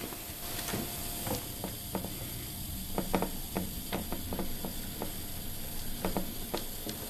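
Small motorized display turntable rotating: a faint steady motor hum under irregular light clicks and crackles, several a second at the busiest.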